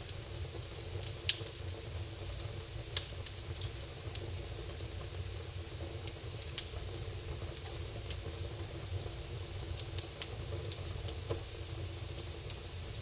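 Fire crackling in a fireplace: a steady hiss with sharp, irregular pops and crackles every second or few, the loudest about a second in and about three seconds in.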